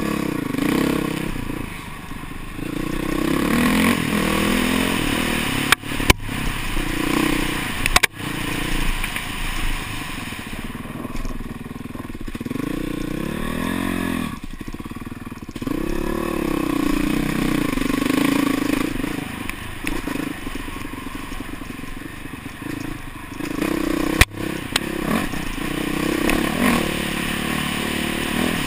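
Honda CRF450R dirt bike's single-cylinder four-stroke engine revving up and down as it is ridden along a trail. A few sharp knocks sound from the bike hitting bumps or rocks, about six and eight seconds in and again near the end.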